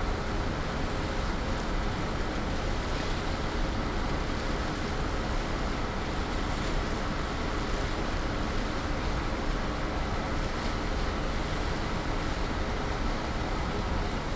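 A ferry under way: a steady rush of water along the hull and wake, with wind buffeting the microphone, over a faint steady hum from the ship's engines.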